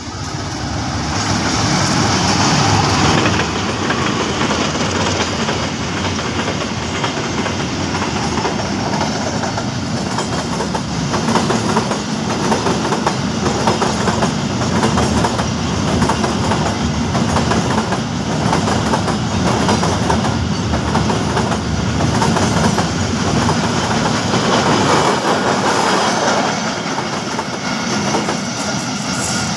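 Freight train of empty flat wagons rolling past close by: a steady loud rumble with a fast clickety-clack of wheels over the rail joints.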